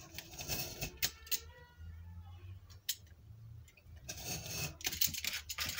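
Craft knife blade scraping through cardstock along a metal ruler, in two cutting strokes, the second about four seconds in, with a few small clicks of the blade and ruler.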